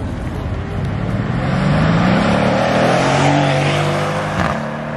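A Mercedes-Benz coupe accelerating hard past, its engine note rising and getting louder as it comes by, then easing as it pulls away. A single sharp crack sounds near the end.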